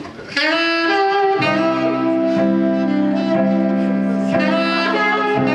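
Live band starting a song: sustained chords and a held melody line come in about half a second in, and a bass layer joins about a second later.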